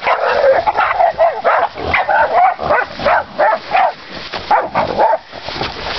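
Pig-hunting dogs barking and yelping in rapid, overlapping calls while holding a wild boar at bay.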